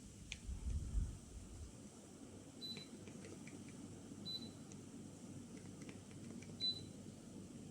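Daikin FTC35NV14 split air conditioner's indoor unit beeping: three short high beeps about two seconds apart, the acknowledgement beep such a unit gives when it receives a remote-control command. Under them runs the low steady hum of the running unit, with a few faint clicks between beeps. A low rumble comes in the first second and a half.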